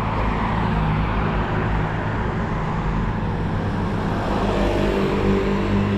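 Road traffic: cars passing with tyre rush and engine hum, an engine's hum growing louder near the end.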